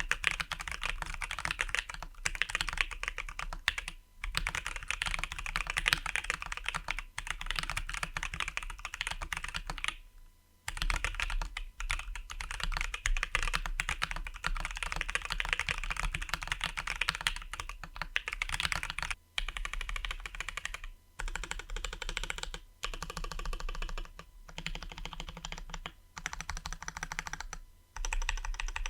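Fast typing on a mechanical keyboard in an acrylic case: lubed and filmed Durock Koala and Everglide Oreo switches under PBT keycaps, with Everglide stabilisers. It is a steady stream of keystrokes broken by brief pauses, the longest about ten seconds in.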